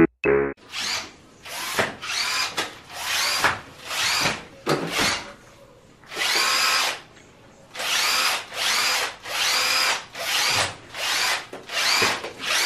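Cordless power drill run in a string of short trigger bursts, each spinning up with a rising whine and stopping, roughly one a second with brief pauses between.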